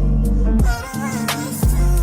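Background music: an R&B/hip-hop style track with heavy bass and a steady drum beat.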